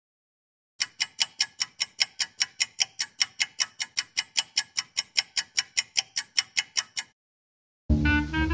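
Stopwatch ticking steadily, about five sharp ticks a second. It stops shortly before the end, and swing music comes in just after.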